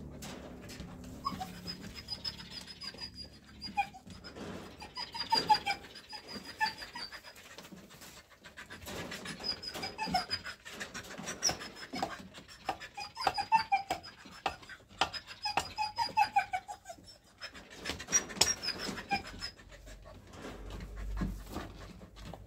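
Bouts of short, high, falling animal calls, a few notes at a time, with sharp clicks and knocks throughout.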